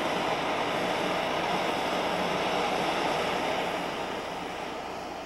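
Handheld gas torch's blue flame hissing steadily as it is played over a soft clay pot to dry it. The hiss fades away near the end.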